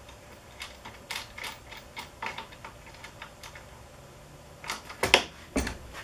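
Irregular light clicks and taps of a toggle clamp being hand-adjusted on a plywood table-saw jig, with a louder clack a little after five seconds in.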